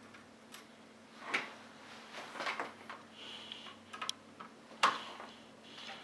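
A few sharp, separate clicks and taps of a screwdriver bit on the small, flat-headed screws of an M.2 SSD heatsink as they are tightened, the loudest about five seconds in.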